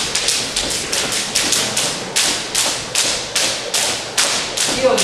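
Sharp slaps from boxing training, about two or three a second in a steady rhythm.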